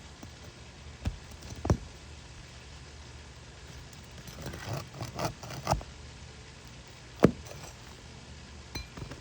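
Scattered sharp knocks and metallic clinks, as of hand tools and fasteners being handled during repair work: two knocks about a second in, a quick run of clinks and knocks in the middle, one louder sharp hit a couple of seconds later, and a few light clicks near the end.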